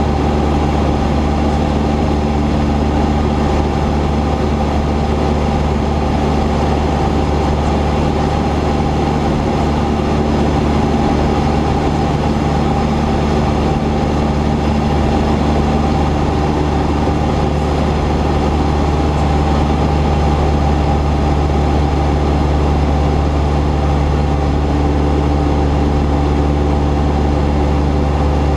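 Cessna 172's piston engine and propeller droning steadily at a constant setting, with no change in pitch.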